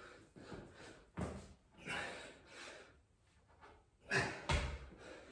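A man breathing hard in gasps and heavy exhalations while doing burpees, with a thud about four and a half seconds in as his body drops to the floor.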